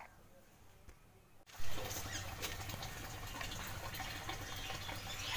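Quiet for the first second and a half, then clothes being washed by hand: water splashing and dripping as a wet cloth is lifted out of a plastic bucket.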